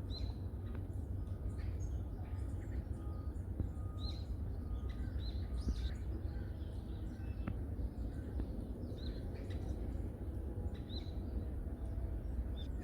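Forest birds calling: short, high chirps recur every second or so, irregularly, over a steady low rumble.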